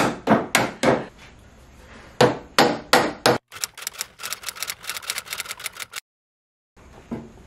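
Hammer blows on wood: two quick groups of four strikes, then, after a cut, a fast run of lighter taps, several a second.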